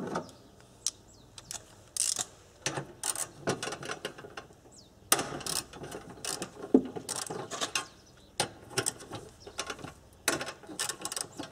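Socket ratchet clicking in several short runs as tight screws are worked loose.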